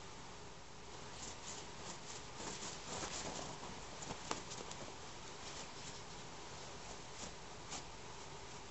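A cat's paws scratching and pouncing on a cotton bed sheet, with the fabric rustling over a toy being dragged beneath it: scattered scratchy clicks, busiest in the first half, with a sharp tap about four seconds in.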